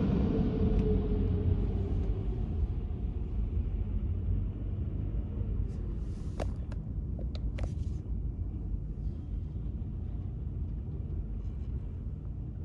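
Mark VII GT-300 car wash machinery winding down: a low rumble that fades steadily, with a hum that slowly falls in pitch over the first few seconds. A few brief clicks come about six to eight seconds in.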